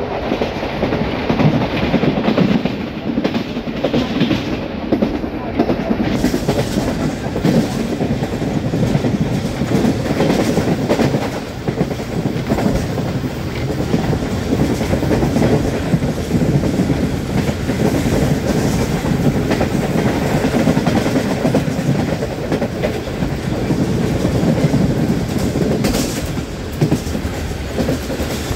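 Awam Express passenger train running fast, heard from a coach window: a steady, loud rumble of steel wheels on rail with continual clickety-clack.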